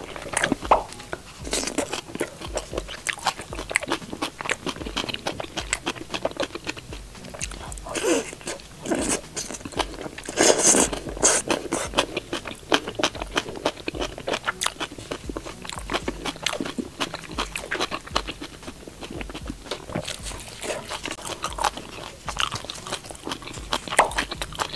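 Crunching and chewing of crispy fried tofu-skin skewers with greens, a dense run of small crackles, with a louder burst of crunching about ten seconds in.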